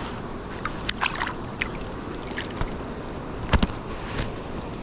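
Water trickling and dripping as a landed trout is lifted out of a landing net in a kayak, with a few sharp clicks and knocks of handling, several about a second in and the loudest about three and a half seconds in, over a steady background hiss.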